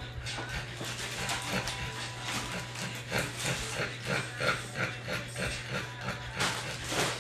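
Short, irregular grunts and snuffles from a French bulldog mother and her nursing week-old puppies, several a second.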